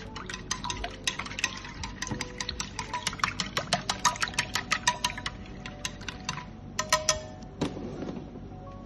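Wooden chopsticks beating eggs and milk in an enamel dish: rapid clinks against the dish, several a second, stopping about seven seconds in. A brief rustle follows near the end.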